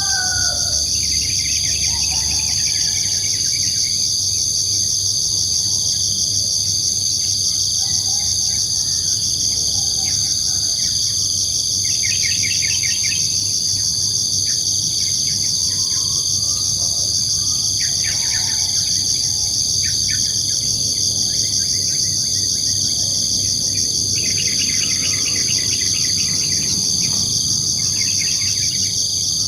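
Insects trilling in a continuous, high, finely pulsing chorus that is the loudest sound throughout. Short series of bird chirps come in now and then, about a second in, around halfway and again near the end.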